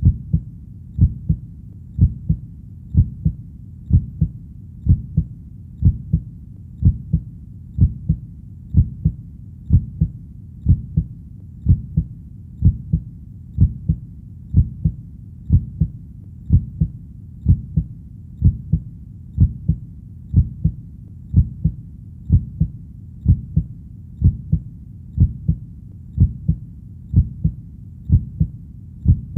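Heartbeat sound: a steady lub-dub double thump about once a second, low and dull, over a faint low background between beats.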